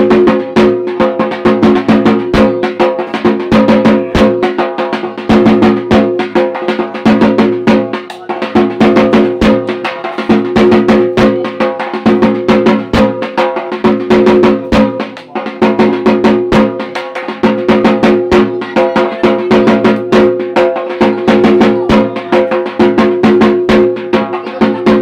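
Loud percussion music with fast, dense strikes and a steady ringing drone underneath, playing without a break.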